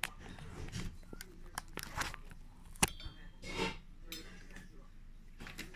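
Scattered light clicks and knocks of small objects being handled, with one sharper knock about three seconds in.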